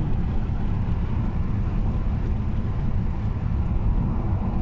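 Steady low rumble of a car driving along an open road, heard from inside the cabin: engine and tyre noise.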